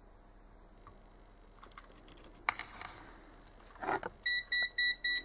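Digital multimeter beeping a quick run of about six short high beeps, roughly five a second, near the end: its warning that it is about to switch itself off automatically. Before that, a single sharp click and a brief rustle of handling.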